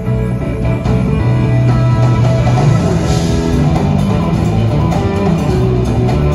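A band playing live in an arena, led by electric guitar over bass, keyboards and drums, with a moving bass line.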